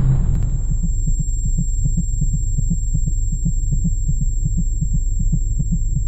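Film sound design after an explosion: the tail of the blast dies away in the first second, leaving a rapid, heartbeat-like low throbbing pulse over a low hum and a thin, steady high ringing tone, the effect of being stunned by the blast.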